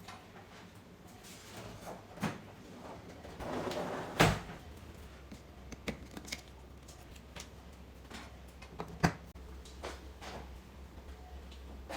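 Handling noises from work on a TV: scattered clicks and knocks, a rustle ending in a sharp knock about four seconds in, and another sharp click about nine seconds in. A low steady hum starts just after the first loud knock.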